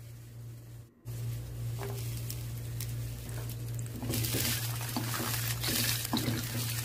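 Chopped garlic and green chilies sizzling in hot oil in a nonstick frying pan while a spatula stirs and scrapes them. The sizzling grows louder about four seconds in, over a steady low hum.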